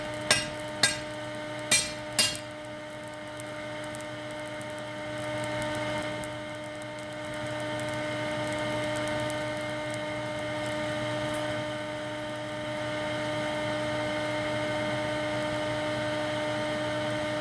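Four hammer blows on hot sword steel against an anvil in the first couple of seconds, then the steady hum of an electric air blower feeding a small backyard pit forge while the blade reheats.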